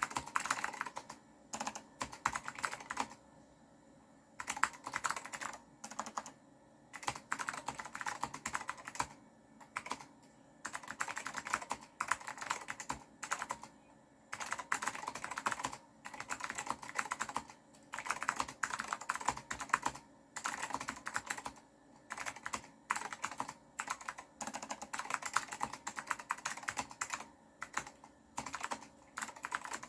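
Typing on an Apple M0116 keyboard fitted with clicky blue Alps switches: rapid runs of sharp keystroke clicks in bursts of a second or two, with short pauses between them.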